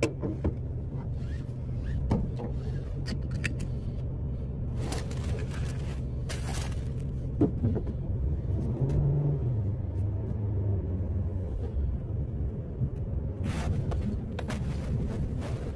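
Car running, heard from inside the cabin as it pulls away slowly: a steady low rumble with a few scattered clicks and knocks.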